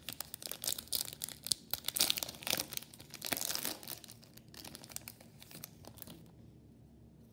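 Crinkling of a foil trading-card pack wrapper as it is pulled from the box and torn open. The crackling is densest over the first four seconds and dies away about six seconds in.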